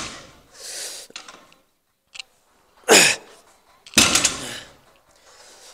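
A weightlifter breathing forcefully through heavy barbell reps: sharp, loud exhalations and grunts right at the start, about three seconds in (one grunt falling in pitch) and about four seconds in, with softer hissing breaths between.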